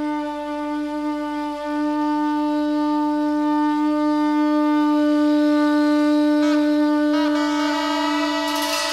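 Music: a wind instrument holding one long, steady note. Another line with wavering, bending notes joins about six seconds in, and a bright shimmer comes in near the end.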